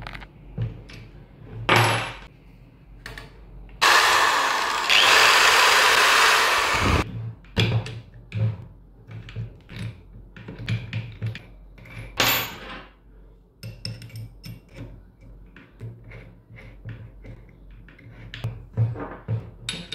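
A Montez MZ-TPD-008 700-watt electric drill runs loudly for about three seconds, starting about four seconds in. Scattered clicks and knocks from handling the drill come before and after the run.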